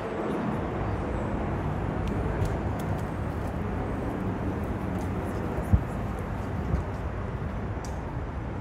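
City street ambience: a steady hum of traffic with passers-by talking, and two short thumps about a second apart a little past the middle.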